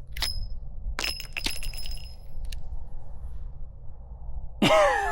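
A few light metallic clinks in the first second and a half; two of them ring on with a clear, high tone for about a second before fading.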